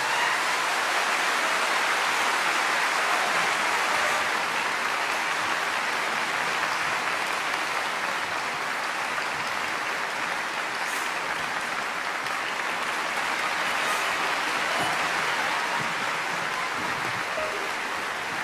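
Audience applauding steadily in a concert hall, easing off a little toward the end.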